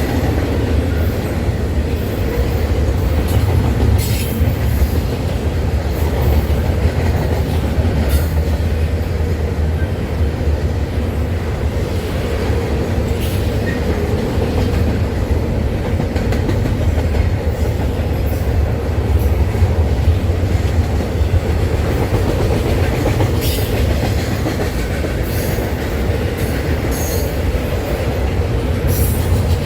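Norfolk Southern freight train rolling past: a steady, loud low rumble of cars on the rails, with scattered sharp clacks from the wheels.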